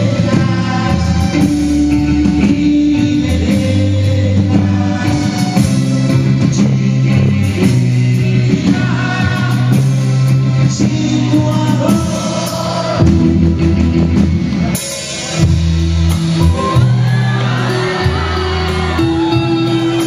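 A live pop-rock band playing, with a male lead singer over electric guitar and bass.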